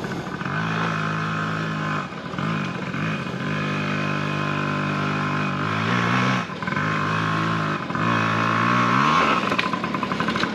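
Dirt bike engine being revved up and down as it climbs a steep dirt hill, its pitch rising and falling several times. The engine cuts out about nine seconds in, followed by a few clicks.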